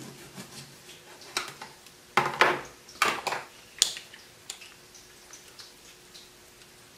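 A lime being cut in half with a knife and then pressed in a hand citrus squeezer: a string of sharp knocks and clatters of the knife and squeezer in the first few seconds, then a few faint ticks.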